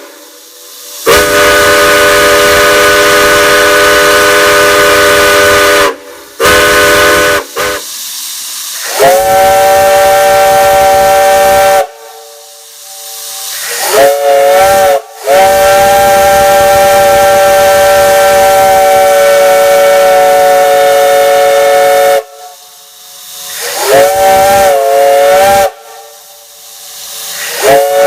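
Multi-chime steam whistle blown in a series of loud blasts, several notes sounding together as one chord. The blasts vary in length, the longest held about seven seconds near the middle, and some short ones bend up in pitch as they open and down as they close.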